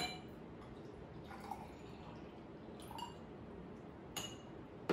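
Water poured from one drinking glass into another, with faint trickling and drips and a few light taps of glass, the sharpest at the start and near the end.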